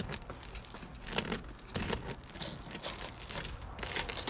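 Shattered laminated windshield glass crackling and crinkling as its rubbery plastic interlayer is cut and the crazed sheet is pulled down, with loose glass coming down near the end.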